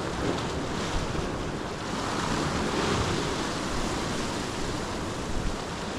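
Sea waves washing against shoreline rocks, with wind buffeting the microphone; the wash swells a little about two to three seconds in.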